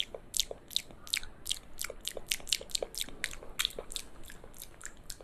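Rapid crisp clicks and taps on a handheld electric fan's plastic body, about four to five a second, uneven in strength.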